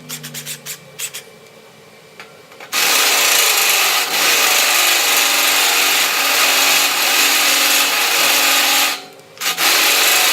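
A few light clicks, then about three seconds in an electric drill runs under load, its large bit grinding against steel. It stops briefly near the nine-second mark and starts again.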